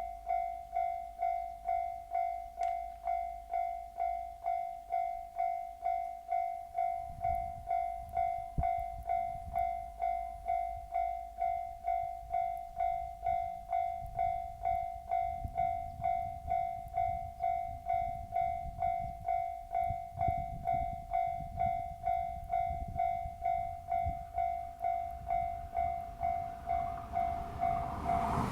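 Japanese railway level-crossing warning bell ringing over and over, about two dings a second, each decaying before the next. A low rumble of an approaching train comes in about a quarter of the way through and builds, and the train passes loudly at the very end.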